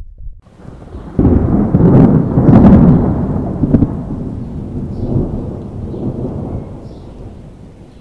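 A thunderclap that breaks in sharply about a second in, with a few short crackles, then rolls on as a deep rumble that slowly fades.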